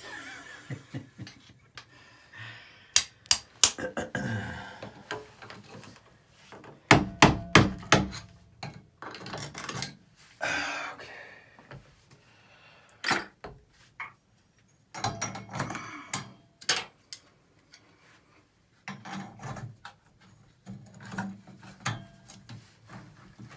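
Screwdriver chipping and scraping hardened grout out from around tub and shower valve stems set in ceramic tile: irregular sharp taps, some in quick clusters, with scraping between.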